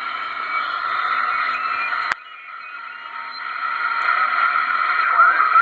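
Receiver static and garbled chatter from a 2970 ten-meter transceiver's speaker, with a sharp click about two seconds in that drops the noise. Near the end come warbling, squawking signals of the kind single-sideband voices make when tuned off-frequency.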